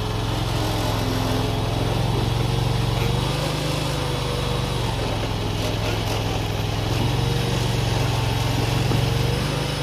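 Mini skid steer's engine running steadily, its pitch sagging and rising slightly a few times as the machine works.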